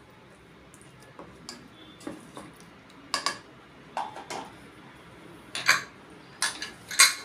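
Spatula and pressure cooker clanking as raw mutton chops are handled in the aluminium pot: a string of separate sharp knocks and clinks, louder toward the end.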